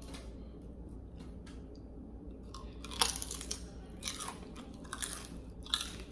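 Crisp chips being bitten and chewed with a mouth. The crunching grows louder about three seconds in, as a string of sharp, irregular crunches.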